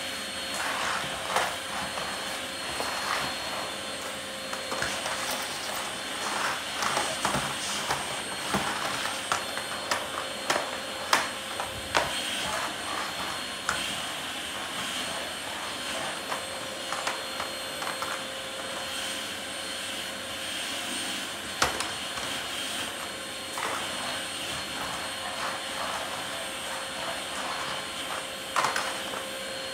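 Small portable vacuum cleaner running steadily with a constant whine, its hose being worked over the floor, with scattered clicks and knocks throughout.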